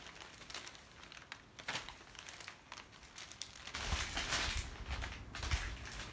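Newspaper gift wrapping crumpling as it is pulled open, then a thin plastic shopping bag crinkling, louder and busier from about four seconds in as the bag is lifted out and handled.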